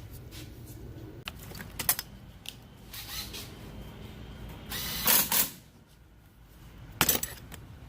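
Hand work on car brake parts: scattered metal clicks and clinks, with short harsh bursts of noise about five and seven seconds in, the loudest in the stretch, as a brake rotor and caliper are fitted back onto a rear hub.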